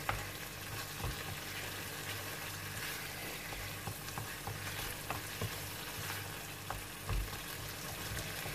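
Tomato pizza sauce sizzling in a frying pan as a wooden spatula stirs it, with scattered light scrapes and taps of the spatula against the pan. The sauce is being cooked down until its water has boiled off and it turns thick.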